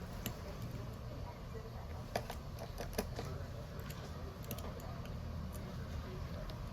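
Scattered light clicks and taps, a handful of separate strikes, over a steady low hum.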